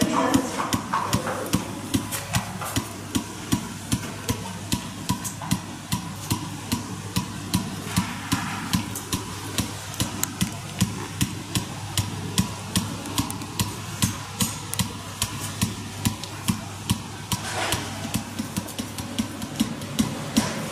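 PAPIMI pulsed electromagnetic therapy device firing through its ring applicator, giving a sharp, regular click about twice a second over a steady low hum.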